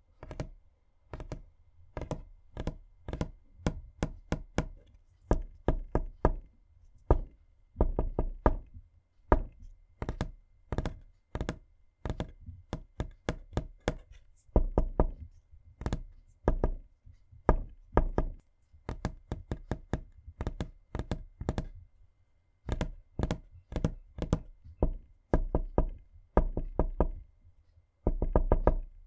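Knuckles tapping and knocking on a wooden surface, such as a table. The strikes are sharp and come in irregular groups of two to five, some soft and some hard, with a quick flurry of knocks near the end.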